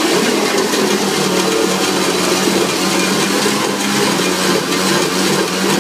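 Small 90cc youth ATV's engine running loud and steady.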